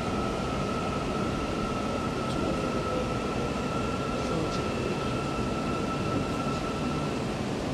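Cabin noise inside a Putrajaya Line MRT train car: a steady rumble with a high, steady electrical whine that stops about seven seconds in.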